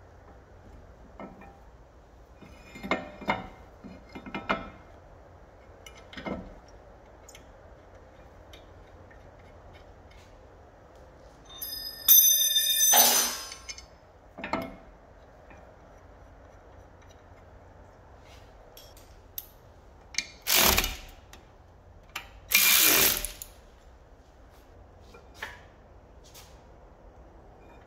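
Irregular metallic clanks, knocks and scrapes from handling a car's rear brake disc and caliper by hand. There is a brief metallic ring about twelve seconds in, and two louder noisy bursts about a second long come in the second half.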